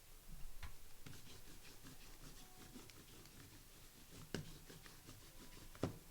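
Faint handling of trading cards and pack packaging: light rustling and small clicks, with two sharper taps, one a little past four seconds and one near the end.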